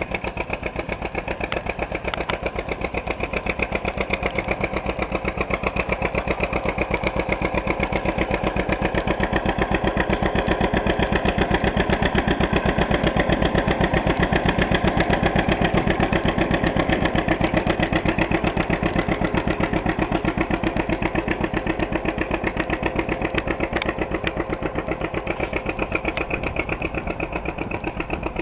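1954 John Deere 60's two-cylinder engine running with a rapid, even exhaust beat while the tractor plows snow. It grows louder toward the middle and eases off near the end.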